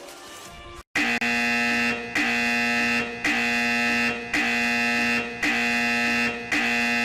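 An electronic buzzer-like tone sounds in about six even pulses of roughly a second each, with short gaps between them, starting about a second in.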